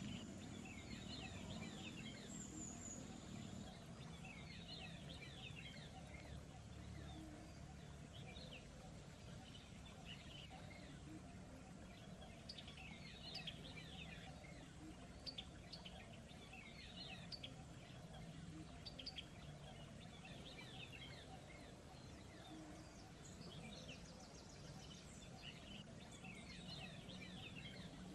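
Small birds chirping in many quick, short falling notes, busiest in the middle, over a faint steady background of outdoor ambience.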